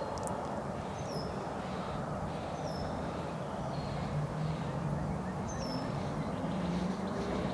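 Steady wind noise rushing over the microphone, with a small bird chirping short falling notes every second or so. A low hum comes in over the last few seconds.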